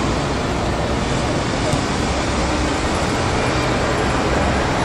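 Steady outdoor background noise of distant road traffic, with faint, indistinct voices of players calling on the pitch.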